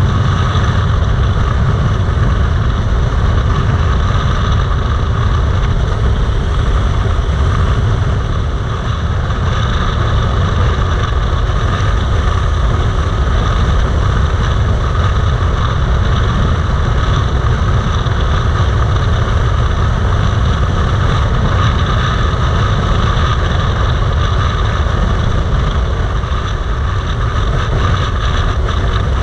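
Yamaha MT-07's parallel-twin engine running steadily at highway cruising speed, mixed with the rush of wind over the bike and the mounted camera.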